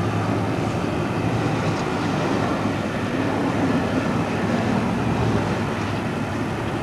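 Southern Pacific 4449 steam locomotive and its passenger train running past at a distance, heard as a steady rumble.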